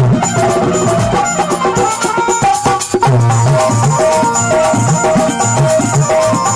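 Instrumental Indian devotional aarti music, with a steady hand-drum beat under held melody tones. The beat breaks briefly about three seconds in, then picks up again.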